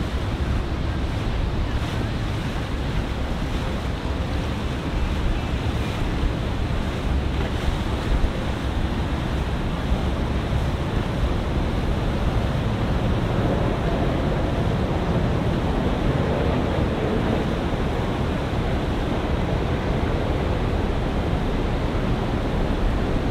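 Steady wind noise on the microphone over the wash of water and the running of a Jeanneau Leader 40 motor cruiser under way.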